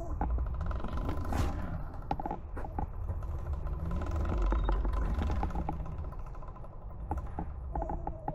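72V Eride Pro SS electric dirt bike being ridden on a trail. Its motor whine rises and falls twice with speed over a steady low rumble of tyres and wind, with scattered knocks and rattles from the chassis and drivetrain over the bumps.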